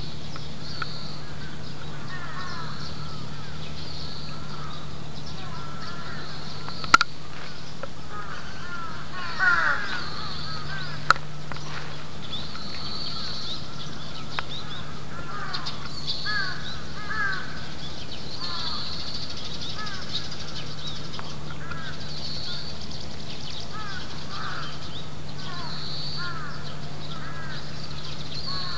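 Crows cawing in repeated runs of short calls that sound like laughter, over a steady low hum. Two sharp clicks come about seven and eleven seconds in.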